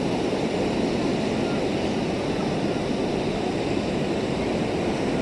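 Steady rush of ocean surf mixed with wind noise on the microphone.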